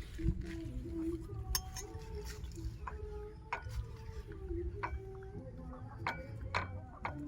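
Eating sounds: a utensil clinks sharply against a dish about half a dozen times, at uneven intervals.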